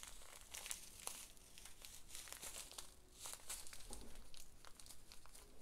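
Faint crinkling of small plastic bags of seed beads being handled and pinched open, in scattered short crackles.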